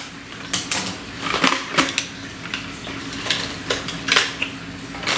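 Hard plastic parts of a toy remote-control snake being handled and unpacked: irregular clicks, knocks and rattles of plastic pieces against each other and the packaging.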